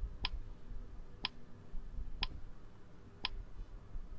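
Countdown timer sound effect ticking: four short, sharp ticks, one a second.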